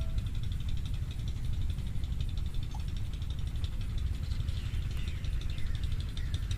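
Wind buffeting the microphone in an open field, a steady low rumble. Faint rapid high ticking and a few faint falling chirps sound over it in the second half.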